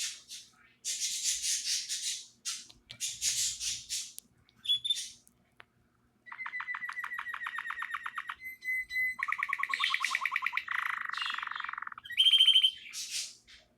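Canary singing: harsh, raspy phrases, then after a short pause long, rapid trills of evenly repeated notes, ending in a louder, higher phrase.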